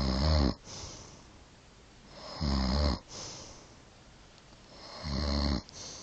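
Elderly woman snoring: three loud, rattling snores about two and a half seconds apart, each followed by a softer breathy sound.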